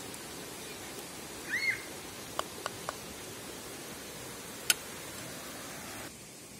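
Steady outdoor background hiss with a short chirp about a second and a half in, three light clicks soon after, and one sharp tick a little later, the loudest sound. The background hiss drops slightly near the end.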